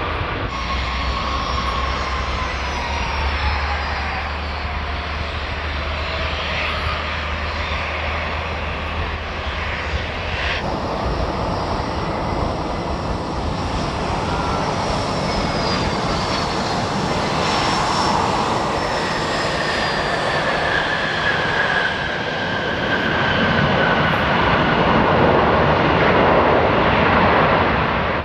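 Jet aircraft engines passing close by, their whine falling in pitch as the plane goes past. The sound changes abruptly about ten seconds in and is loudest near the end.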